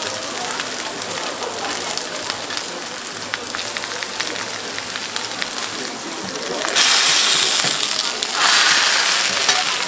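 Food sizzling and crackling on a hot street-stall griddle. About two-thirds of the way in, a much louder hiss starts suddenly, breaks off briefly, then starts again.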